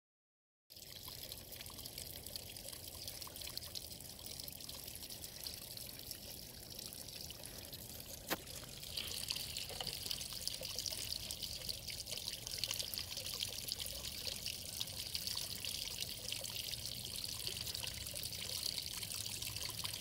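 Water pouring from a plastic pipe into a basin in a rock and spilling and trickling down the rock face of a small man-made waterfall. The flow is a steady splashing that gets a little louder about nine seconds in, with a single brief click just after eight seconds.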